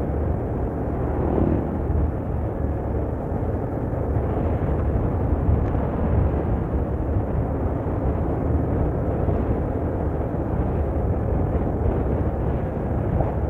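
Steady rumble of road and wind noise from travelling close behind a Mercedes-Benz 1626 diesel coach, with a deep engine drone underneath.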